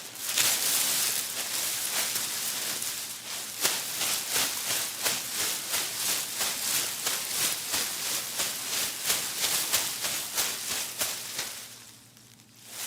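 Loose videotape ribbon being crushed in a walking rhythm as a foley imitation of footsteps through grass: crisp rustling crunches, about two a second, dying away briefly near the end.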